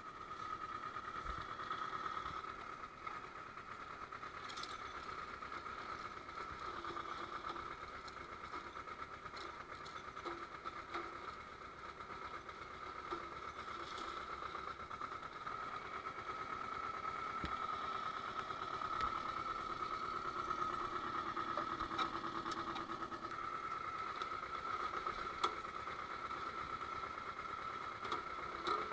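Antonio Carraro compact tractor's engine running steadily with an even tone, a little louder in the second half, with a few sharp knocks.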